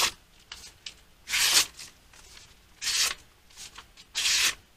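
A sharpened steel knife blade slicing through a sheet of paper, testing the edge. There are four short slicing hisses about a second and a half apart.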